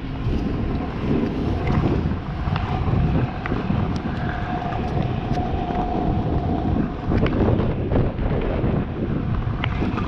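Kick scooter wheels rolling over rough asphalt: a steady rumble with sharp clicks here and there, and wind buffeting the microphone.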